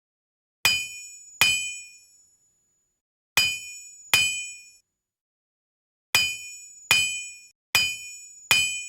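Blacksmith's hammer striking iron on an anvil with a bright metallic ring: two pairs of blows, then four in a steady row, each ringing out and dying away within about a second.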